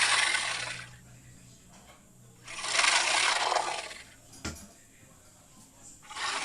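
Dragon roar sound effects: harsh, hissing, breath-like roars about two seconds long, repeated with pauses between them, and a single sharp click between the second and third.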